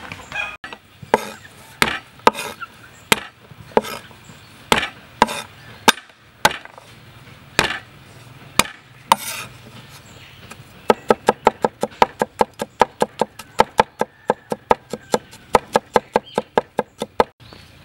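Steel cleaver striking a wooden chopping board: spaced single knocks for the first ten seconds or so, then fast, even chopping at about four strokes a second as garlic is minced.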